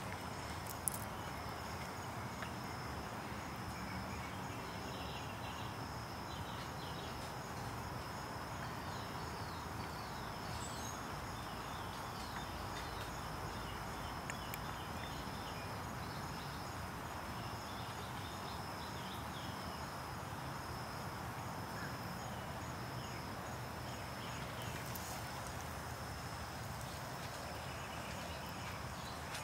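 Outdoor ambience with a steady high insect drone and faint scattered chirps. A single sharp click comes about a second in.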